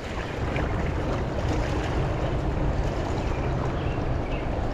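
Fast, high river water rushing steadily, with a low rumble of wind on the microphone.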